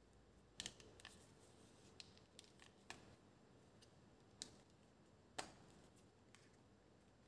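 Faint, irregular light clicks and taps, about ten of them, from small tools and the plastic parts of a handheld phone gimbal being handled as it is taken apart for a battery and board replacement.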